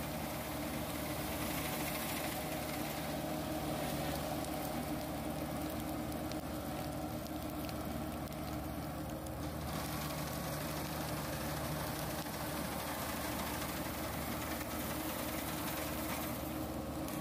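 Kubota PRO 588I-G combine harvester running steadily under load as it cuts and threshes standing wheat: a constant engine drone mixed with the noise of the header and threshing machinery.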